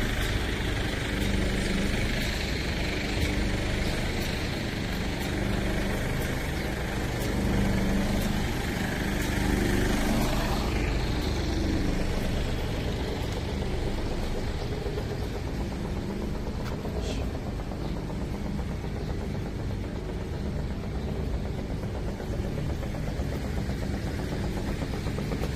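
A heavy diesel truck engine idling steadily with a low hum.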